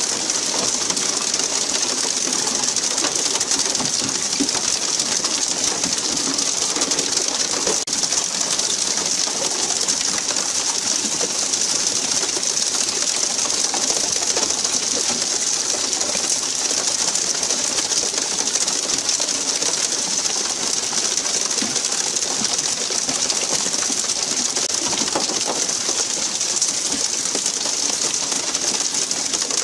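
Steady hiss of a pole-and-line tuna boat's water sprayers jetting water onto the sea surface, with a dense, churning murmur lower down.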